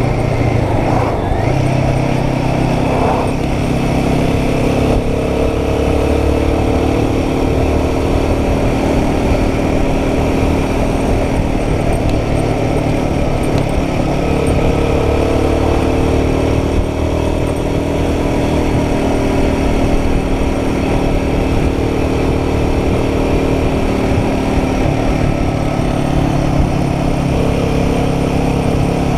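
Royal Enfield Guerrilla 450's single-cylinder engine running at a steady cruise, its note drifting slightly up and down, with wind and road noise.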